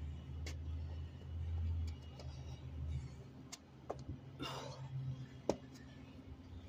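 A person doing burpees with push-ups on concrete: short sharp taps of hands and shoes striking the ground and one heavy breath out about four and a half seconds in, over a low steady rumble that is loudest in the first three seconds.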